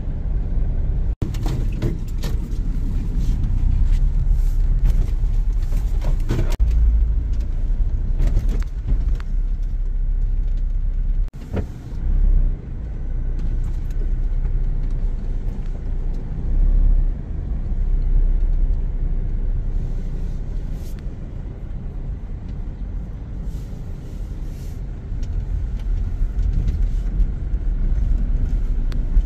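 Steady low rumble of a moving vehicle, with a few brief knocks.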